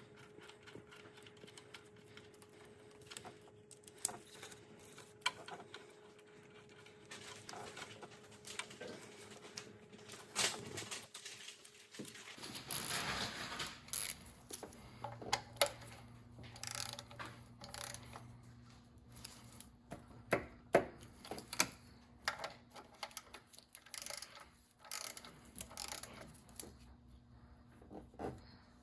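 Quiet, scattered clicks and clinks of hand tools and metal parts being handled on an engine during reassembly, over a faint steady hum. A brief louder rush of noise comes about thirteen seconds in.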